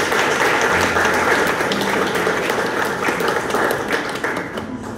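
Audience applauding, many hands clapping together, dying down near the end.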